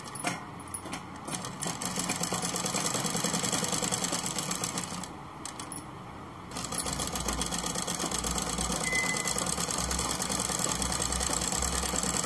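A domestic straight-stitch sewing machine running fast and evenly as it stitches fabric. It stops briefly about five seconds in, then runs on.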